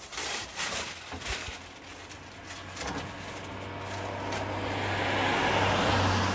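A motor vehicle passing, its engine hum and tyre noise growing louder to a peak near the end, then beginning to fade. A few light knocks of things being handled early on.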